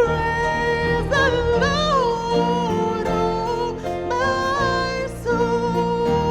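Worship song: a singer holding long, drawn-out notes with slides between pitches over steady instrumental accompaniment.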